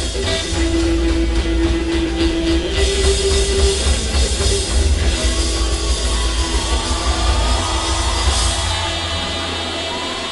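Live rockabilly and R&B band playing loud, with upright bass, drum kit, electric guitar and saxophone. A note is held for about three seconds near the start, then wavering higher lines run over the band in the second half.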